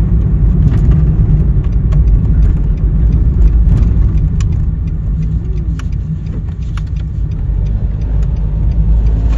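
Road noise inside a moving car: a steady low rumble from tyres and engine, with scattered light clicks and rattles.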